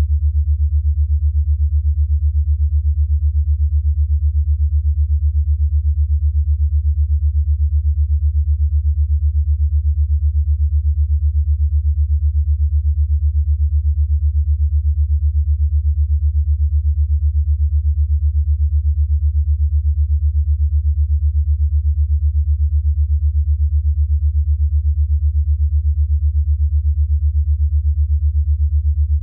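Synthesized low hum pulsing rapidly and evenly: an 8 Hz alpha-wave pulsed tone meant for brainwave entrainment.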